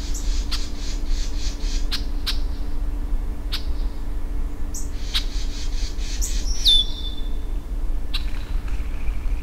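A small bird perched on overhead wires calling: sharp short chips and quick runs of rapid high notes, with one high whistle that slides down in pitch about seven seconds in. A steady low rumble and a faint hum sit underneath.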